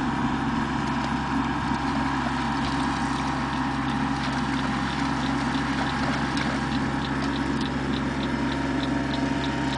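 A steady mechanical hum, like a motor running, with light regular ticking of about three ticks a second setting in during the second half.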